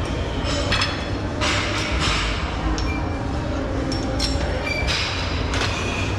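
Short metallic clinks and pings of a cable-machine bar attachment being handled and clipped onto the cable, with some rattling and knocks, over a steady low rumble of gym ambience.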